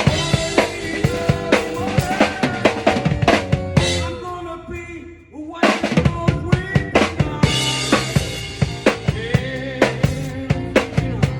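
A live band playing, driven by a drum kit with kick, snare and rimshots over bass and other pitched instruments. About four seconds in the drums stop and a held note fades almost away. A little over a second later the full band crashes back in.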